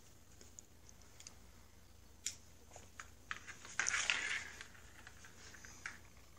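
Cats playing in a cardboard box: scattered light taps and scratches of paws and a coil-spring toy on the cardboard, with a longer scuffling scrape about four seconds in as the toy is batted across the floor of the box.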